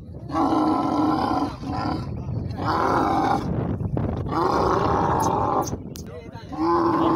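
Camel bellowing with its mouth wide open as it is pushed and handled: four long groaning calls of about a second each, roughly two seconds apart.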